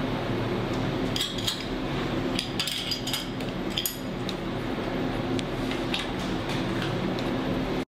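Scattered light metallic clinks and taps as hands work at the steel hold-down clamps and aluminium engine case on a CNC mill table, most of them between about one and four seconds in. A steady machine hum runs underneath.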